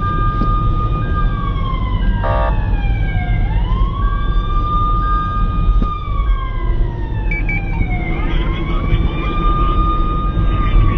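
An emergency-vehicle siren on a slow wail, climbing, holding, then gliding down about every four and a half seconds, over a steady low rumble of engine and road noise.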